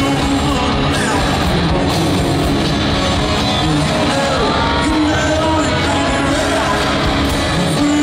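Live country rock band playing with a male lead vocalist singing into a handheld microphone over the arena sound system, loud and steady throughout.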